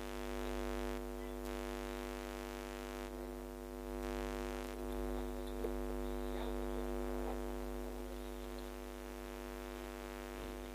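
Steady electrical mains hum, a low buzz made of several even tones, with a few faint small ticks and scrapes about halfway through.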